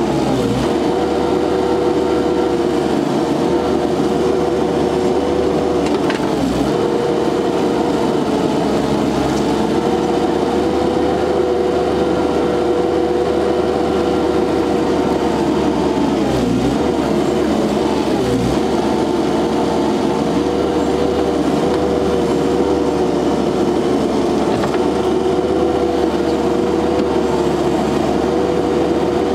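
Kubota SCL1000 compact loader's diesel engine running steadily at working speed while the machine digs and moves dirt; its note sags briefly a few times under load.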